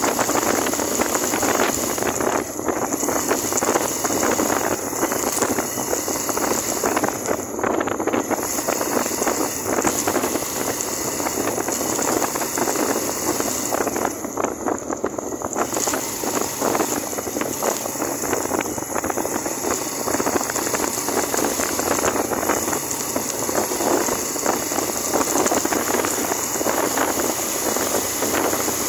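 Suzuki GN125 motorcycle under way, its single-cylinder four-stroke engine running steadily beneath a constant rush of wind over the microphone.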